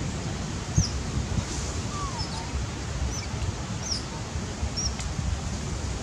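Outdoor ambience: a steady low wind rumble with several short, high bird chirps scattered through it and one lower falling whistle about two seconds in.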